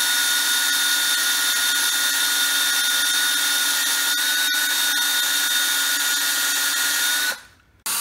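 Cordless drill running steadily in reverse, turning a reamer through the worn throttle-shaft bore of an aluminum Holley carburetor base plate: a steady whine with a few light ticks midway. It stops about seven seconds in and starts up again just before the end.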